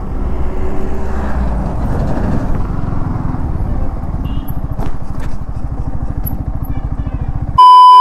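Motorcycle engine running steadily while riding along at speed. Near the end a loud, steady test-tone beep cuts in, the kind played over a TV colour-bars screen.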